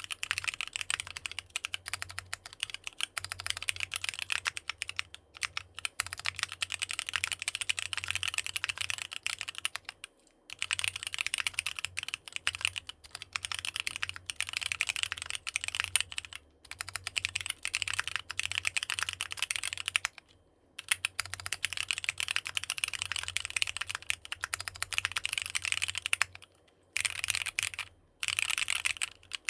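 Fast, continuous typing on a NEO65 65% custom mechanical keyboard fitted with AKKO Sponge tactile switches. The keystrokes run together into a dense clatter that stops briefly a few times.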